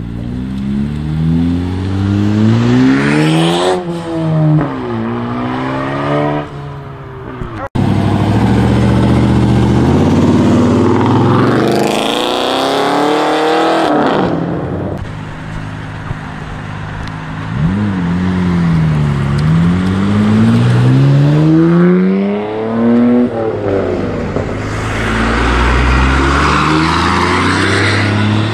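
Cars accelerating hard one after another, each engine revving up in pitch and dropping at the gear shifts. The first is a Honda Civic pulling out and shifting up twice; the last is a white older Dodge pickup pulling away.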